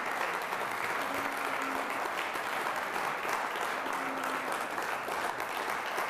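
Audience applauding steadily after the hammer falls on a sale, with a man's drawn-out boos sounding a couple of times over the clapping.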